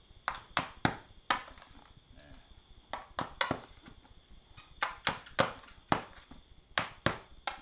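Irregular sharp knocks and taps, about a dozen, from hands working on large styrofoam discs being made into a prop barbell.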